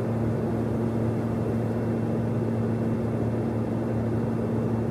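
Airplane in flight: a steady engine drone with a constant low hum, with no change in pitch or level.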